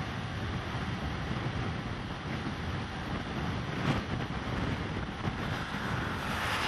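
Wind buffeting the microphone: a steady rushing noise with a fluttering low rumble, one sharp knock about four seconds in, and the rush growing louder and hissier near the end.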